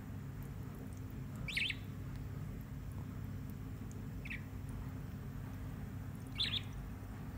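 Young budgerigar giving three short, sharp chirps, spaced two to three seconds apart.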